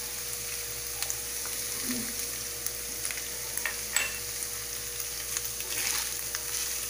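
Shredded chicken breast sizzling steadily in hot oil in a frying pan, with scattered small crackles and pops. Near the end a wooden spoon stirs and scrapes through it in the pan.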